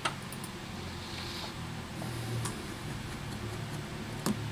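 A few sharp, separate ticks of a precision screwdriver and tweezers against tiny screws and the metal frame of a Samsung Galaxy S8, the loudest near the end, over a low steady hum.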